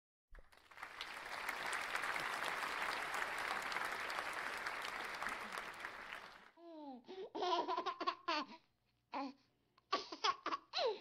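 Clapping applause for about six seconds, then several short bursts of laughter, falling in pitch.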